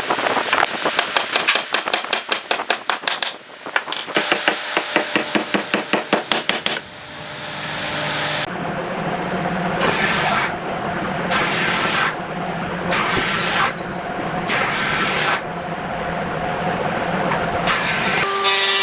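Woodworking on a wooden stump: a hand tool working the wood in fast, even strokes, with a short pause, then a power tool running steadily from about seven seconds in, its pitch rising and falling as it is pressed into the wood about once a second.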